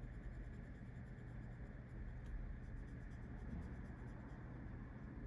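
Faint scratching of a permanent marker colouring in on paper, in short continuous strokes.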